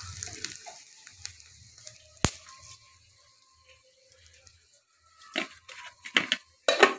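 Bay leaf and dried red chilli frying in a little hot oil in a steel kadai, a faint sizzle dying away in the first second or so. A sharp click comes about two seconds in, then after a quiet stretch a few short crackling, rustling noises near the end.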